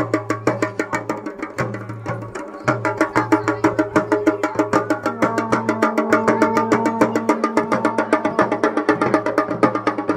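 Garhwali dhol drumming, a fast, even beat for the village deity puja and dance. A held tone joins about five seconds in.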